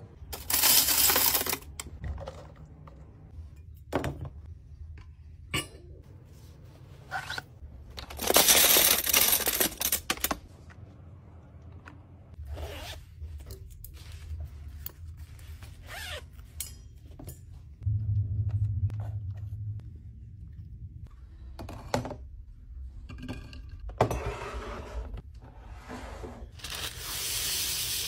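A run of packing-and-handling sounds: plastic tumblers knocked and clacked as they are taken off a shelf, glass straws clinking as they are slid into a zippered fabric pouch, and, near the end, paper pulled off a roll dispenser with a long rustle. Between these come scattered sharp clicks and knocks.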